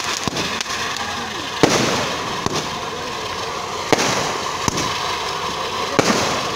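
A large ground spark firework, a sudarshan chakra, spraying sparks with a steady rushing hiss, broken by a few sharp cracks.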